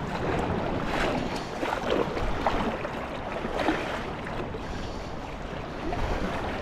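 Beach surf washing, with wind on the microphone and a few short sloshes of water.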